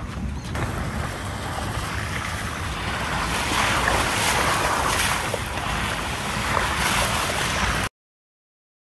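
Wind buffeting the microphone over the low rumble of a moving safari vehicle, louder from about three seconds in. The sound cuts off abruptly near the end.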